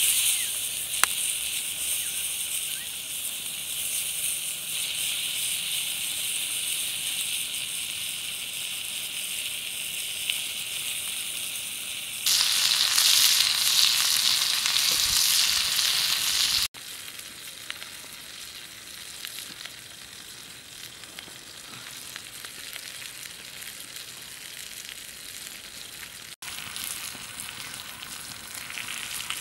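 Whole scored fish sizzling on a hot stone slab over a wood fire: a steady frying hiss that jumps louder about twelve seconds in, then drops abruptly to a softer hiss some five seconds later.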